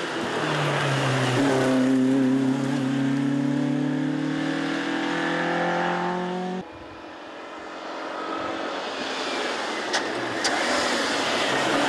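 Alpine A110 rally car accelerating hard past, its engine note rising steadily. It cuts off abruptly about two thirds of the way in, and a second rally car, an Alfa Romeo GT coupé, is heard approaching under power, louder as it nears, with two sharp clicks near the end.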